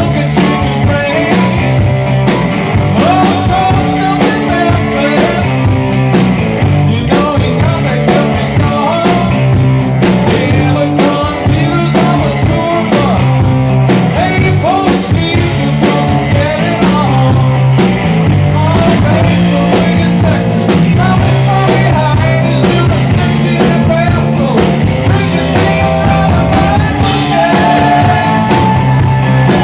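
Live rock band playing a rock-and-roll song on electric guitars, electric bass and drum kit, with a lead vocal.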